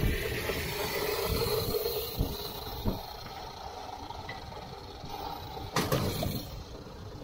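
Wind noise and road rumble from a moving e-bike, with a steady hum that fades out about three seconds in. A few short knocks or bumps, the loudest about six seconds in.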